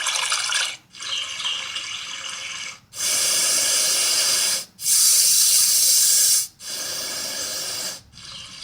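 Babelio Mini white noise machine switching from one preset sound to the next: a run of steady water-like and white-noise hisses, each lasting a second or two and cut by a brief gap as the track changes, about five changes in all. The loudest and brightest hiss comes about five seconds in.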